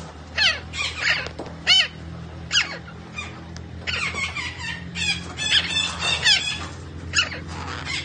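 Red-breasted parakeet giving a run of short, high-pitched calls, each a quick downward-sweeping note, coming singly and in tight clusters with brief gaps. A steady low hum runs beneath.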